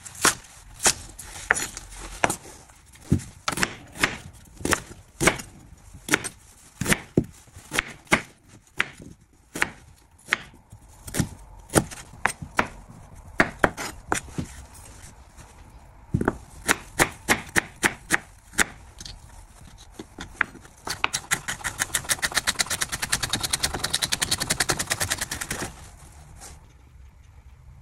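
Kitchen knife chopping scallions and ginger on a bamboo cutting board: steady knocks about two to three a second, then a quick run of rapid chopping lasting about five seconds near the end.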